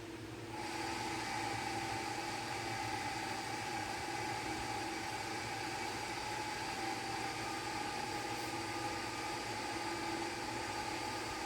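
A steady machine hum with a few fixed whining tones, coming up about half a second in and then holding level.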